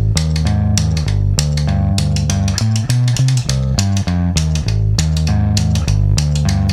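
Rockabilly band music: a bass line and guitar over a steady beat.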